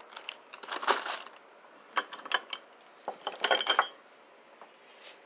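Ornate metal drawer pulls being handled: sharp metallic clinks and rattles as they knock together, in small clusters about two seconds in and again about three and a half seconds in.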